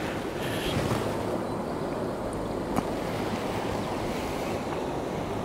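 Steady rush of a small stream's flowing water, with one light click near the middle.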